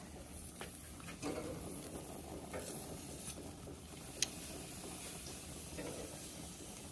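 Sirloin steaks sizzling on a hot gas grill: a steady low hiss with scattered small crackles and one sharper pop about four seconds in.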